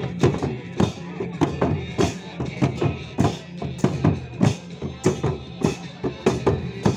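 Hand-beaten Nepali dhol barrel drums and small brass hand cymbals playing a steady, even rhythm of about two to three strokes a second, for a Rai folk dance.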